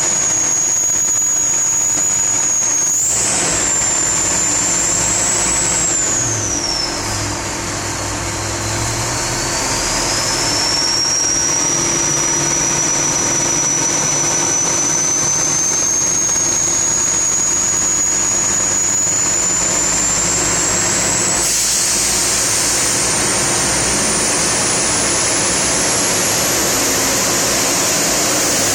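Cummins diesel engine running, with its turbocharger giving a loud single-note whistle over the engine noise. The whistle dips in pitch about eight seconds in, then climbs slowly and steadily higher through the rest.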